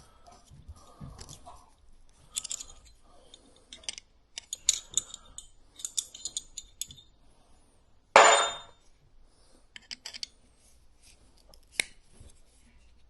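Small hand tools and parts clicking, clinking and scraping in irregular bursts during work on a dropper post's hydraulic hose, with one loud burst lasting under a second about eight seconds in and a sharp click near the end.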